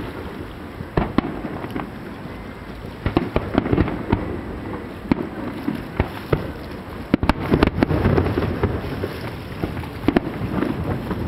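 Aerial firework shells launching and bursting: an irregular series of sharp bangs and crackles over a continuous low rumble. The bangs come thickest about two-thirds of the way in.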